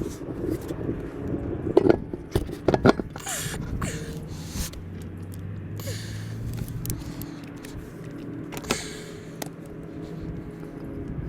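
Plugged tyre being aired up: short hisses of air at the valve, with a few sharp knocks and clicks over a low steady hum.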